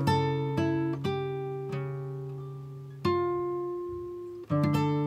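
Background music: a plucked guitar picking single notes and chords that ring and fade between strikes.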